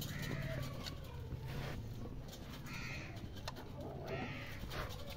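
Birds calling a few times, short calls spread a second or more apart, over a low steady hum.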